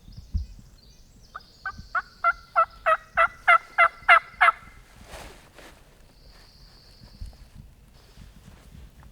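Turkey yelps: a run of about eleven evenly spaced yelps, roughly three a second, growing louder, as used to call in a gobbler. A soft thump comes just before them.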